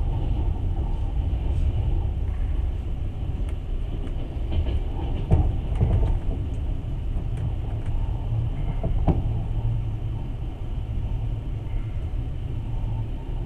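Passenger train running on the rails, heard from inside the carriage: a steady low rumble with a few sharp knocks about five, six and nine seconds in.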